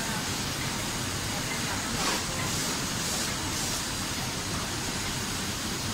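Steady running noise of a food packaging line, conveyor belts and machinery of a checkweigher and metal detector, an even hum and hiss with a few soft hissing swells between about two and four seconds in.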